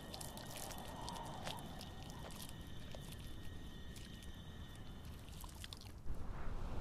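Faint, irregular crunching clicks of a Namaqua chameleon chewing and swallowing a beetle, over soft background hiss. About six seconds in, surf and wind come up.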